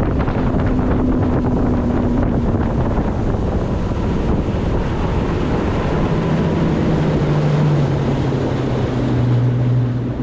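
150 hp outboard motor on a bass boat running at speed, with wind buffeting the microphone and water rushing past the hull. The engine's note drops lower about six seconds in.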